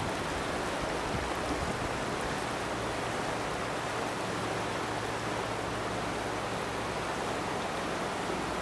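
Steady rushing of the flooded DuPage River running high and fast, a continuous even wash of water noise.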